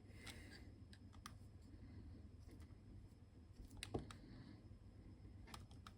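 Faint, sparse clicks of a metal 5-pin DIN plug being handled and fitted together around a cable, with one sharper click about four seconds in.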